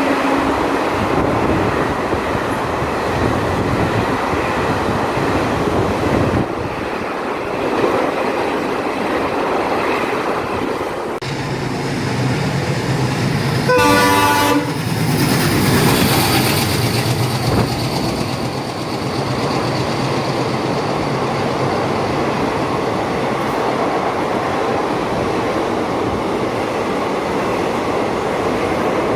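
A train running past on the tracks, with continuous rolling and running noise. A single short horn blast sounds about halfway through.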